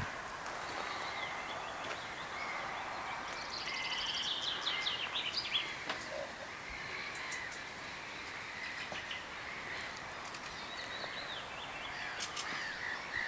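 Several birds singing and calling over a steady outdoor hiss, with a quick run of repeated high notes about four seconds in and more calls near the end.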